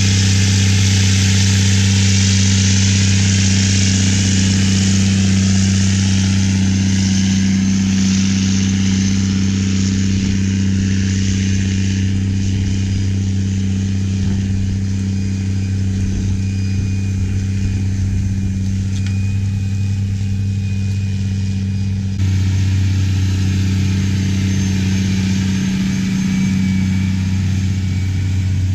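Big Bud 525/50 tractor's diesel engine running steadily under load while pulling an 18-bottom plow, a deep continuous hum with a hiss above it. The sound shifts abruptly about 22 seconds in.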